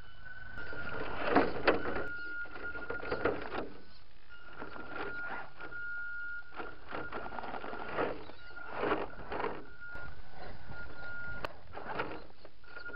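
Radio-controlled Tamiya CC-01 crawler's electric motor and gear drive whining in stop-start bursts of throttle, with tyres and chassis knocking and scraping on rocks.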